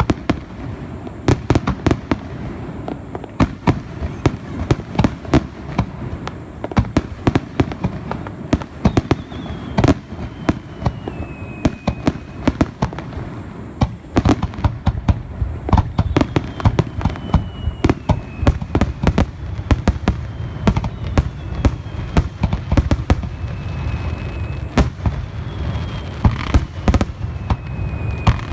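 Aerial fireworks finale: a rapid, continuous barrage of bangs and crackles. Several whistles glide down in pitch over the bangs.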